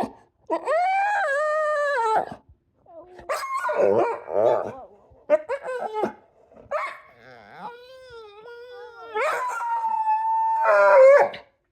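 A dog howling and whining in a series of long, drawn-out calls, some wavering in pitch and some held on one note for over a second, broken by short pauses and a rougher, grumbling stretch a few seconds in.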